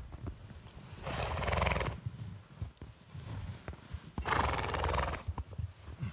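A horse blowing hard through its nostrils twice, each a breathy, fluttering snort about a second long, the second one about three seconds after the first. Soft hoof thuds and rustles in the snow run between them.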